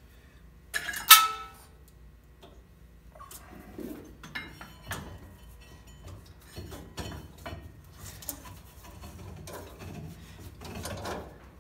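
A rubber V-belt being worked by hand onto the drive pulleys, with rubbing, shuffling and light knocks against the metal pulleys and frame. About a second in comes one sharp metal clink that rings briefly, the loudest sound.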